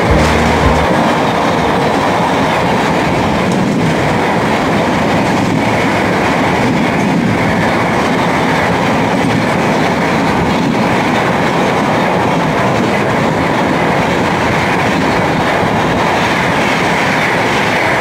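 Shatabdi Express LHB passenger coaches passing at speed beside the platform: a steady, loud rush of wheel-on-rail noise with the clickety-clack of the wheels over the rail joints.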